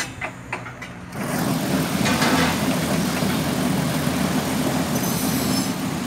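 Mobile concrete mixer running. A faint machine hum with a few clicks gives way about a second in to a loud, rough, steady churning noise.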